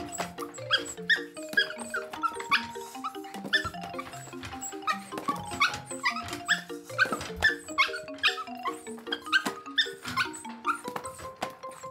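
Background music with a bouncy melody of short notes, over quick scrabbling and knocking from a small Schipperke × Chihuahua puppy running laps back and forth in a wire cage, about one lap a second.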